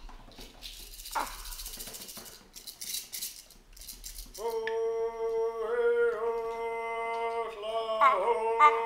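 A rattle shaken in a few short bursts, then a voice holding one long humming note that starts to waver about eight seconds in.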